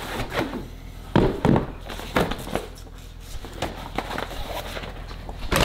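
Black fabric skate bag rustling as it is handled and pulled off a hockey skate in its cardboard box, with a few sharp knocks and thumps, the loudest about a second and a half in and near the end.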